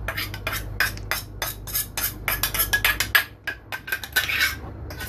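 A mixing utensil knocking and clinking against the side of a mixing bowl as batter is stirred: many quick irregular knocks, with a steady low hum underneath.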